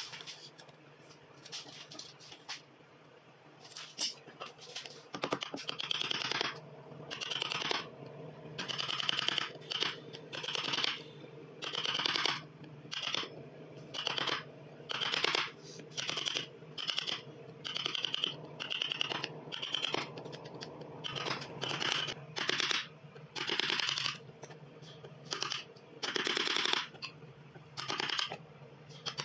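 Wood chisel pushed by hand through a hardwood plane body, paring out the throat and blade slot of a wooden rebate plane: a long run of short scraping cuts, about one a second, after a few light clicks in the first seconds.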